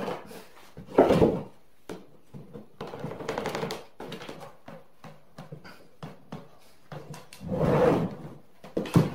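Wooden parts being handled on a workbench: a sharp knock about a second in, longer wood-on-wood sliding scrapes around three seconds in and near the end, and light taps in between.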